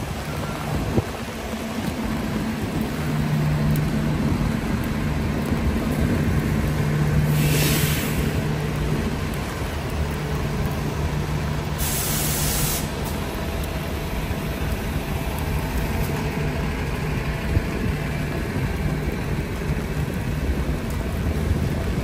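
A heavy vehicle's engine idling with a steady low hum on a rainy street, with rain falling on an umbrella. Two short air-brake hisses come about a third of the way in and just past halfway.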